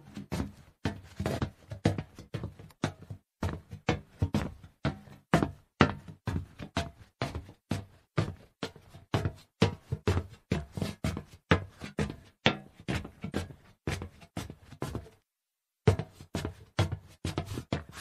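Footsteps walking over hollow metal: a brisk, continuous run of knocking, hollow steps, several a second, with a pause of under a second near the end.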